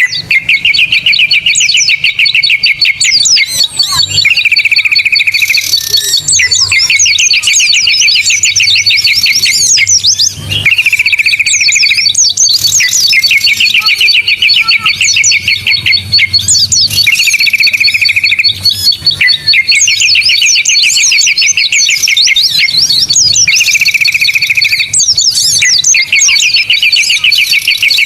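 Bird-lure recording of many small songbirds calling together: a dense chatter of high chirps and whistles over a steady run of high pips. A buzzing trill comes back every few seconds, like a repeating loop.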